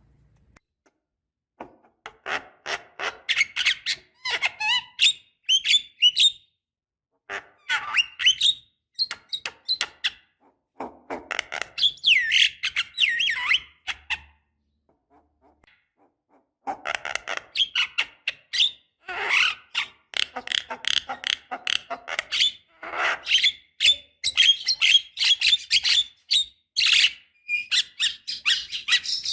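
Javan myna (jalak kebo) singing in bouts of rapid chattering, squeaky and whistled notes, with a pause near the start and another of about two seconds midway.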